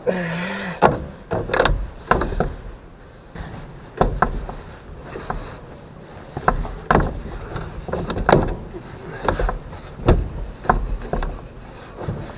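Hands-on work on a car interior: a short creak at the start, then irregular knocks, clicks and clanks of metal parts and tools being handled.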